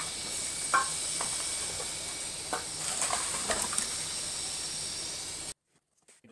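A few light knocks and clicks of a small 3D printer being set down and shuffled into place on a wooden workbench, over a steady hiss. The hiss cuts off abruptly about five and a half seconds in.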